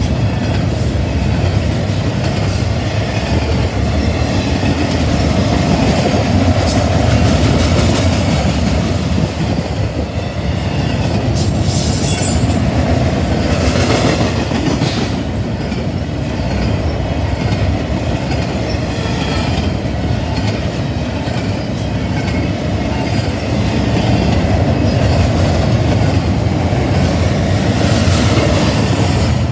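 Double-stack intermodal container train passing at close range: the steady rumble of steel wheels rolling on the rails. A couple of brief high wheel squeals come through midway.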